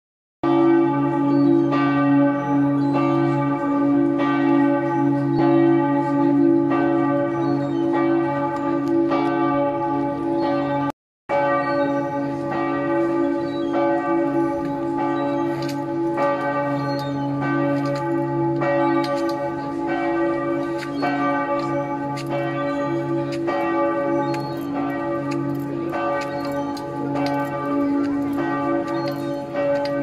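Church bells pealing from the tower: repeated strikes over long, overlapping ringing tones. The sound cuts out briefly about eleven seconds in.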